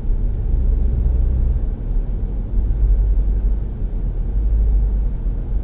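Steady low rumble of a car being driven along a city road: engine and tyre noise with no distinct events.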